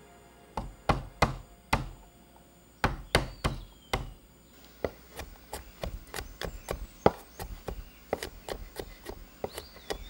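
Cleaver striking a wooden cutting board as whole garlic cloves are roughly crushed and chopped. About eight heavier, spaced blows come first, then quicker, lighter chopping at about four strokes a second from about five seconds in.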